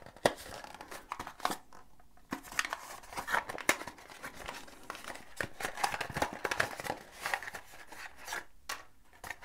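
Small plastic bags crinkling and rustling as they are handled and opened, with many irregular light clicks and crackles throughout.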